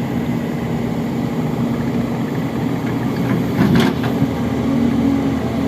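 Excavator diesel engine running steadily, with one short sharp noise a little past halfway.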